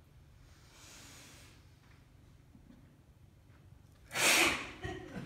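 Quiet room tone, then a sudden loud, breathy burst of voice about four seconds in, lasting about half a second.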